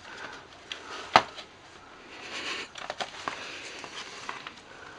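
Small scissors cutting into plastic RAM packaging: scattered faint clicks and crinkling of the plastic, with one sharper click about a second in.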